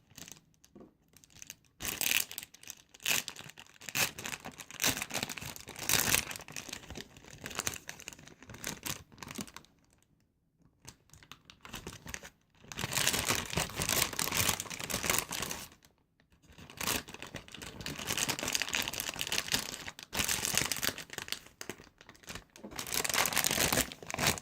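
Plastic packaging crinkling and rustling as a squishy is handled and put back inside it, in irregular spells with a pause of about two seconds around the middle.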